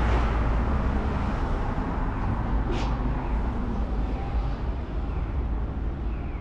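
Steady low rumble of city background noise, with one brief click about three seconds in.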